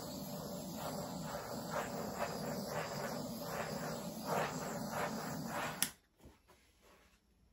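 Handheld butane torch burning with a steady hiss as its flame is passed over wet acrylic paint. It is shut off with a click about six seconds in.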